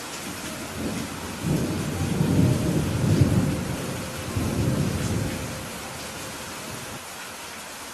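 Steady rain hiss with a low roll of thunder that swells about a second and a half in, rumbles in two waves and fades away by about six seconds.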